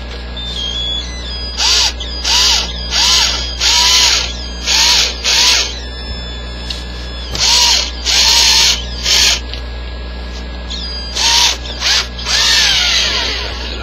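Cordless drill run in about a dozen short trigger bursts in clusters, the motor speeding up and winding down each time, turning a metal strip clamped in its chuck.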